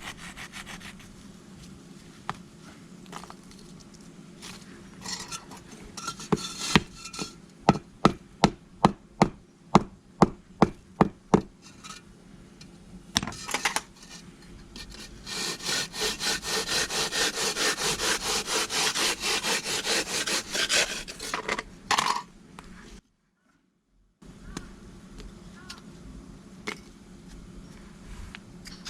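Brick knocked sharply about a dozen times, about two knocks a second, then several seconds of fast, even scraping or rasping against the brick.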